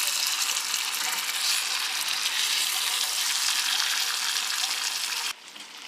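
Fish pieces and masala sizzling in hot oil in a pan, a steady frying hiss that cuts off suddenly near the end.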